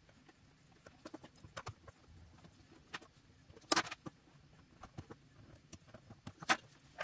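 Small precision screwdriver tip scratching and picking at a speedometer circuit board: light, irregular clicks and scrapes, with two sharper clicks, one a little before the middle and one near the end.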